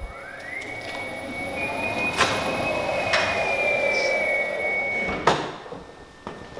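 Nissan Leaf electric car rolling slowly onto a concrete floor: a thin, high electric whine glides up and then holds steady over the sound of the tyres rolling. The car stops about five seconds in, with a sharp click as the driver's door is unlatched and opened.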